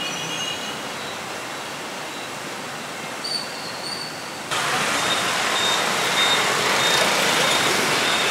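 Steady road traffic noise with a few faint short high beeps. A little past halfway it suddenly becomes louder and hissier.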